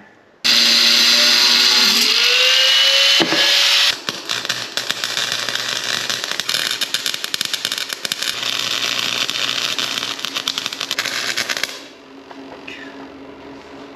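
A power tool runs with a rising whine for about three seconds. Then an electric welder's arc crackles steadily for about eight seconds as a steel strap is welded, and it stops sharply near the end.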